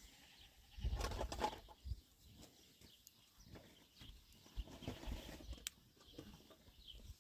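A goat bleats briefly about a second in, followed by faint scattered rustling and clicks.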